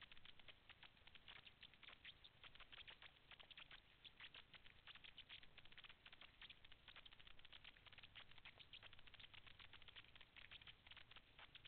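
Faint, dense underwater crackle of countless tiny clicks, the steady background crackle of a rocky seabed heard from a submerged camera.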